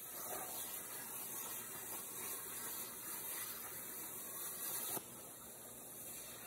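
CNC plasma cutter torch cutting steel plate with a steady hiss. The hiss drops suddenly about five seconds in as the arc goes out, and a softer air hiss carries on.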